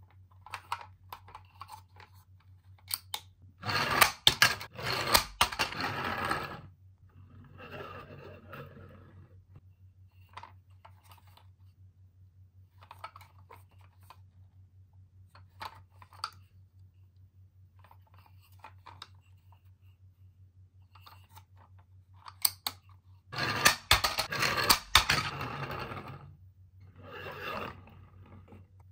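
Plastic toy monster trucks handled and moved about on a tabletop: two longer bursts of scraping and rattling, about 4 and 24 seconds in, with softer rubbing and small clicks between, over a steady low electrical hum.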